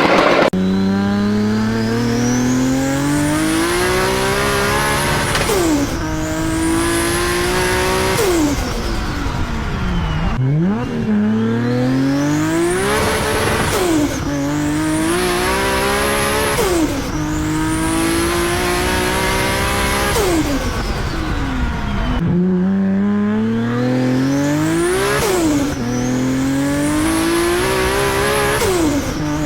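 Toyota Supra Mk4's turbocharged inline-six accelerating hard through the gears three times over: the revs climb, drop sharply at each upshift and climb again. A high whistle, the turbo, rises with the revs and holds near the top of each pull.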